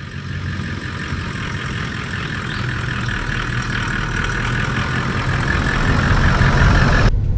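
A vehicle's engine and road noise running steadily and slowly growing louder, cut off abruptly about seven seconds in.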